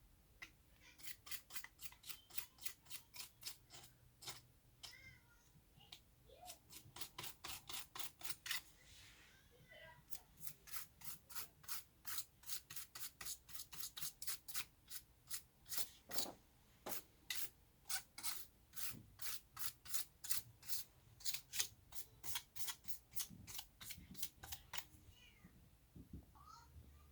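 Rapid, regular scratchy strokes, about three or four a second, from handwork on the open MacBook Pro's interior, with a short pause near the middle.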